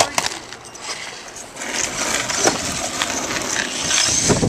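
RC truck driving on concrete, its motor and drivetrain whirring steadily and its tyres rolling. The whir builds up about a second and a half in and then holds.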